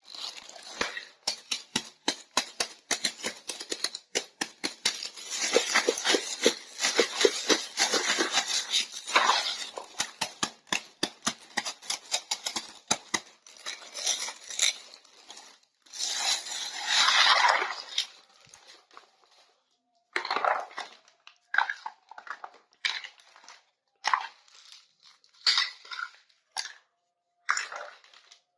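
Plastic packaging crinkling and tearing, with many small clicks and taps of miniature plastic toy kitchen pieces being handled and fitted together. The crinkling comes in dense stretches, and the later part holds sparser separate taps and scrapes.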